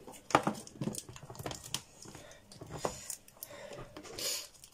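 Hard plastic clicks and knocks as a hand blender's motor unit is fitted onto its chopper bowl and the cord is handled, with a short rustle near the end; the blender motor is not running.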